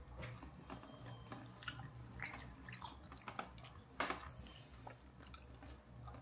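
Faint chewing and eating sounds as people eat chicken at the table, with scattered small clicks and one sharper click about four seconds in, over a low steady hum.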